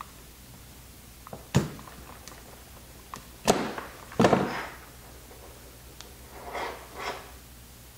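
Utility knife cutting and scraping through the rubbery inner insulation of a thick battery cable, with a few sharp knocks of the knife and cable on the workbench, loudest a little past the middle as the knife is set down. Softer scuffing follows near the end as the cut insulation is worked off the copper strands.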